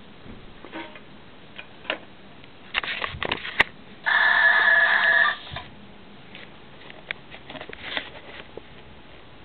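Clicks and knocks of a handheld radio being handled and its buttons pressed, then about four seconds in a loud, steady electronic buzz-tone from the radio lasting about a second and a half, followed by more clicks.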